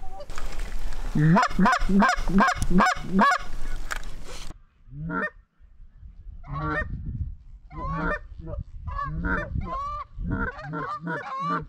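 Canada geese honking and clucking in quick series, a run of calls, a short break about four and a half seconds in, then more bunches of honks as the flock comes in.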